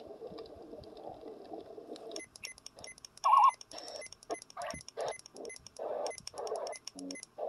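Sharper Image Design Travel Soother 20 (SI621) playing its built-in nature-sound tracks through its small speaker as they are stepped through: a fireside crackle for about two seconds, then rainforest sounds with quick chirping bird calls, then swells of ocean surf near the end.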